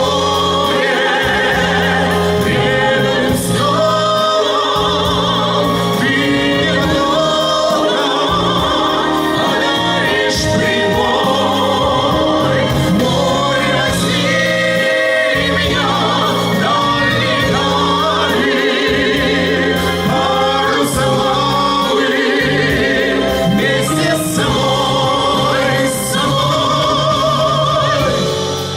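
Voices singing a slow pop song over a backing track with a steady bass line, long notes held with vibrato.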